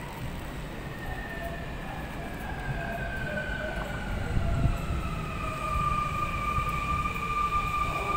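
Sotetsu 21000 series electric train pulling in and braking: a two-tone electric motor whine falls slowly in pitch and grows louder as the train comes alongside, over a low rumble of wheels on rail.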